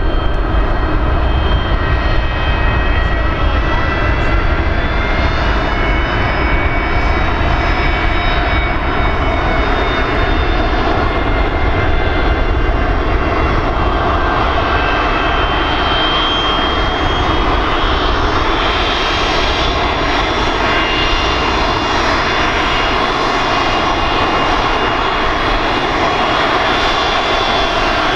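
Boeing 737-200's twin Pratt & Whitney JT8D low-bypass turbofans running at taxi power: a steady low rumble under several high whining tones that drift slightly in pitch as the jet taxis and turns past.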